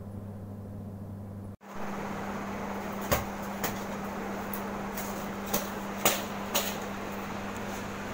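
About seven sharp taps and knocks from household handling while bedding is brushed down, spread over a few seconds after a short drop-out, over a steady hum.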